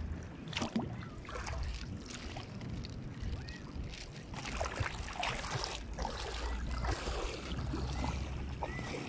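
Shallow seawater sloshing and splashing in short irregular bursts over a steady low rumble.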